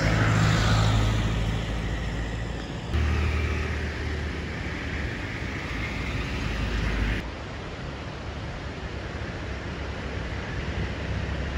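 Road vehicle noise: a steady low engine hum with tyre and road noise, and a vehicle passing near the start with a falling pitch. The sound changes abruptly twice, getting quieter for the last few seconds.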